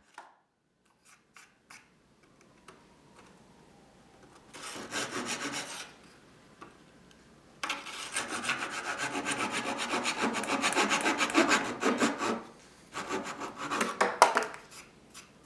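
Fine-toothed hand saw cutting into curly soft maple with quick back-and-forth strokes. After a few nearly quiet seconds there is a short burst of sawing, then a longer steady run in the middle and another short burst near the end.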